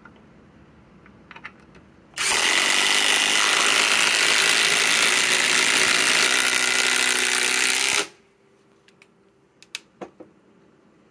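Two cordless impact drivers, a SKIL PWR CORE 20 and a Master Force Boost, hammering together as they drive long screws into a wooden beam. They start about two seconds in and stop together about six seconds later, followed by a few light clicks.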